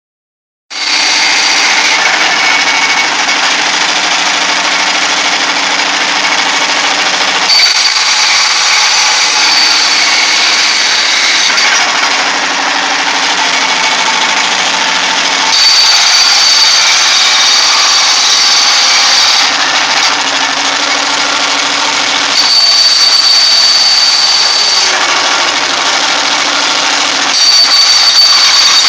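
Jackhammer running continuously and loudly, its tone shifting every few seconds between a high whine and a lower hum.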